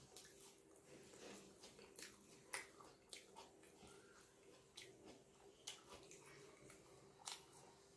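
Quiet chewing of a toasted sandwich, with a few short sharp mouth clicks and crunches, the loudest about two and a half seconds in. A faint steady hum runs underneath.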